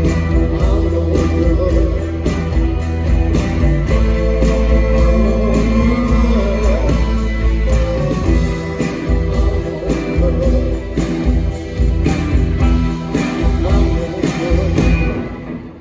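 Live rock band playing loudly, with singing over regular drum hits; the music falls away near the end as the song finishes.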